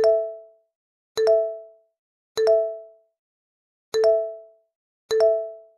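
Editing sound effect of a notification chime, played five times about a second or so apart. Each is a short click followed by a ding of two notes together that fades within half a second, with silence in between.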